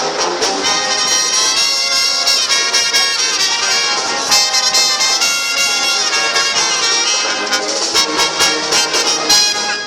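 Loud live rock-band music, recorded from within the concert crowd.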